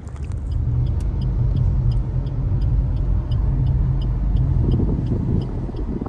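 Car in motion, heard from inside the cabin: a steady low engine and road rumble. Faint regular ticks come about three to four times a second.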